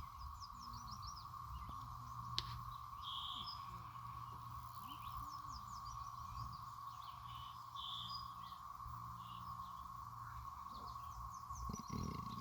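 A steady, unbroken hum of one pitch coming from the woods, the unexplained strange sound, with birds chirping in short repeated runs over it.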